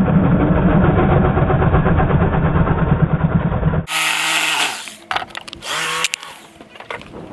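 A handheld power tool running under load, trimming a wooden panel box so that a circuit panel will fit. It stops abruptly about four seconds in, followed by quieter knocks and handling noise.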